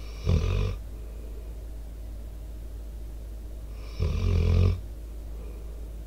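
An American Staffordshire Terrier/pit bull snoring in its sleep close to the microphone. There are two snores, a short one just after the start and a longer one about four seconds in.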